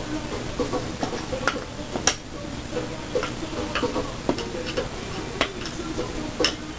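Irregular small clicks and taps of computer parts and hardware being handled during PC assembly, with one sharper click about two seconds in.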